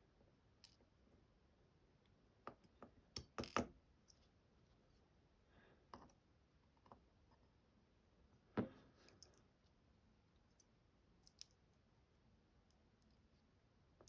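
Light clicks and taps of small metal lock parts being handled as a tier-key lock is taken apart, pins and springs coming out. A quick cluster of clicks comes about three seconds in, with one sharper click past the middle and a couple more near the end.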